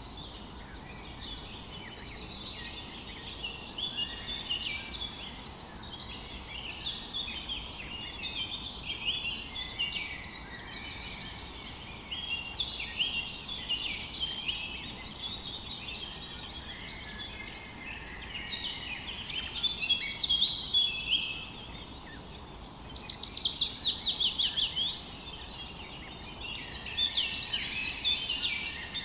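Many songbirds singing at once in a morning chorus, a dense overlap of chirps, whistles and trills, with a fast run of rapidly repeated notes about three-quarters of the way through. A faint steady hiss lies underneath.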